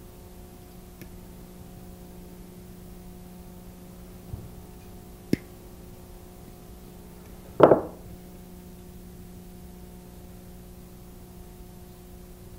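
Hands working thin jewelry wire with pliers over a steady low hum: a faint tap about four seconds in, a sharp click about five seconds in, and a louder short knock a little after halfway through.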